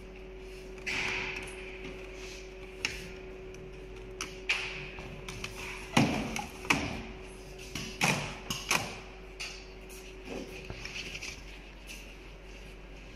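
Scattered clicks, taps and thuds of leather panels and clamping frames being handled on a multi-head pattern sewing machine's work table, busiest around the middle, over a steady hum.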